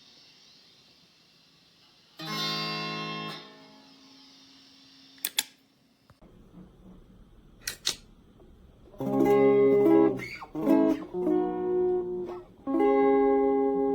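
Electric guitar played through an overdrive pedal: one chord struck briefly about two seconds in, then, after a break, a run of chords struck and left to ring in the second half. A few sharp clicks fall between them.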